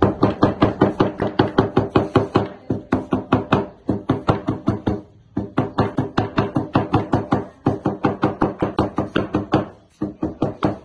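A cleaver chopping vegetables on a plastic cutting board: fast, even knocks of about five strokes a second, in several runs broken by short pauses.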